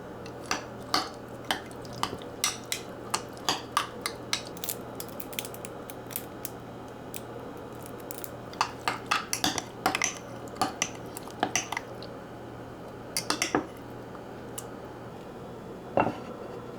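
Cutlery clinking and tapping against bowls and dishes: many sharp clicks in irregular runs with short pauses between them, over a steady low hum.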